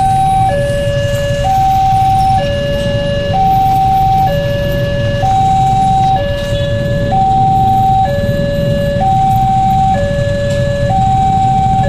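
Railway level-crossing warning alarm, an electronic synthesized two-tone siren, switching between a high and a low tone about once a second. It sounds while the barrier is down, warning that a train is approaching. The low rumble of idling road traffic runs underneath.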